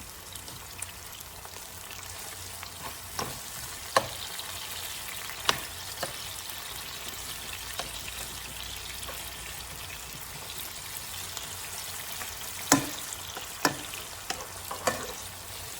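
Seasoning vegetables sautéing in olive oil in a pot, a steady gentle sizzle, with several sharp clicks of a stirring utensil against the pot.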